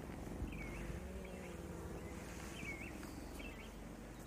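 Honeybees buzzing around the hive as a faint, wavering hum, with a few short bird chirps over it.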